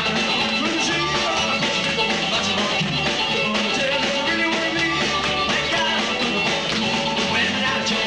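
Live rock-and-roll band playing on electric guitars, bass and drums, a steady, unbroken stretch of the song.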